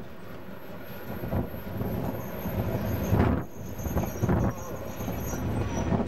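Rolling rumble of passing trains: a loaded oil-tanker freight train running away on one line while a Class 153 single-car diesel railcar approaches on the next. Wind buffets the microphone, with heavier swells about three and four seconds in.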